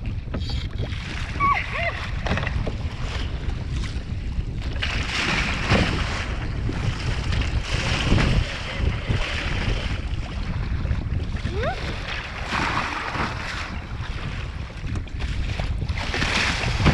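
Wind buffeting the microphone over rough, choppy sea, with waves slapping and splashing against the bow of a kayak. The splashing comes in surges every few seconds, and the biggest splash washes over the bow near the end.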